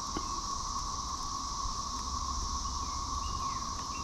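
Insects droning steadily in two high bands. A few short falling bird chirps come in the second half, and there is one light click near the start.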